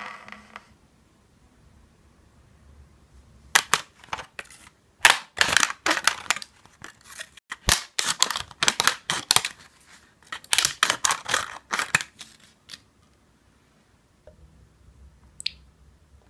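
Scissors snipping brittle gelatin sheets, many sharp crackling cuts in several quick runs with short pauses between them.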